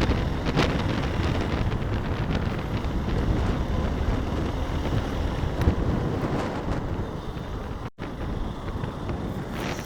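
Wind buffeting the microphone of a rider on a moving motorcycle, over road and engine rumble. The sound cuts out for an instant about eight seconds in.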